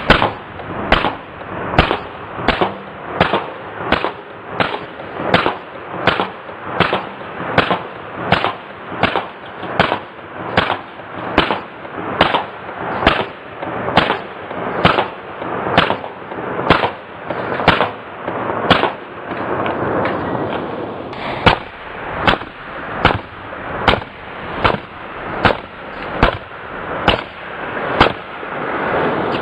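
Sharp bangs repeating at an even pace, about one a second, over a steady hiss.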